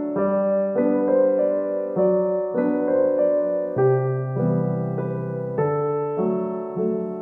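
Solo piano background music playing a steady run of chords.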